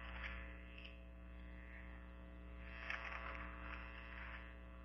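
Low, steady electrical mains hum, with a few faint soft noises about three seconds in.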